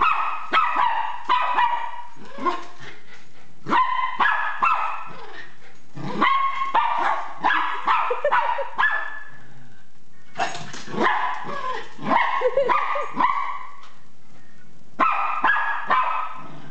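Miniature pinscher barking in alarm at a toy remote-control car: quick runs of high-pitched barks with pauses of a second or two between runs.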